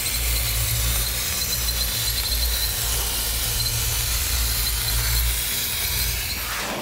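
Plasma cutting torch arc running: a loud, steady hiss with a low rumble under it, easing off near the end.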